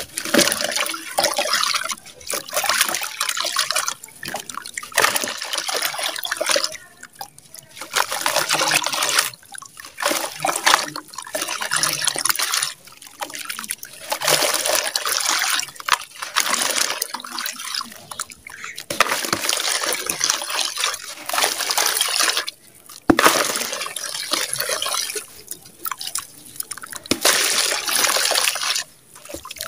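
Handfuls of wet, gritty red sand squeezed and crumbled by hand into a tub of water: crunching and crackling grains, with clumps and sand trickling and dripping into the water. It comes in repeated bursts of a second or two with short pauses between.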